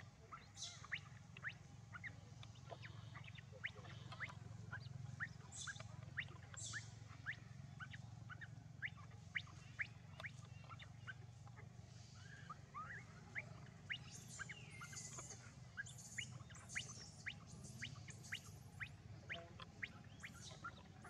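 Faint, short, high chirping calls, about two a second, over a low steady hum, with a run of higher, hissier calls joining in from about two-thirds of the way through.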